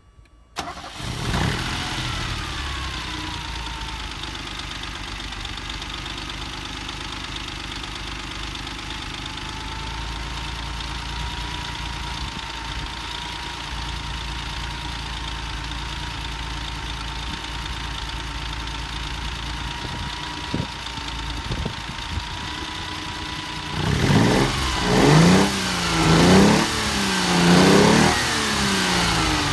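1967 Fiat Dino's 2.0-litre V6, warm, starting about half a second in, flaring and then settling to a steady idle as a whine falls in pitch. Near the end it takes four quick throttle blips, each revving up and dropping back to idle.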